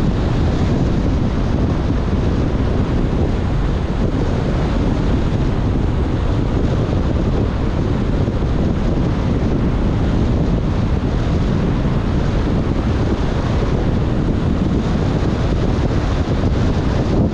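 Steady rushing noise of a car driving on a wet road in heavy rain, heaviest in the low end, with wind buffeting the microphone.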